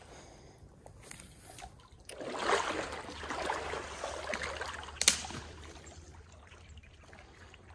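Water splashing and sloshing for a few seconds, loudest about two and a half seconds in, with one sharp click about five seconds in, then the low steady rush of the stream.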